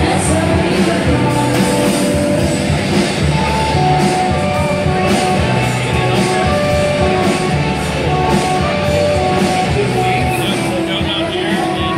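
Live indie rock band playing a song: drums keeping a beat under guitar and bass, with a singer's voice carrying the melody.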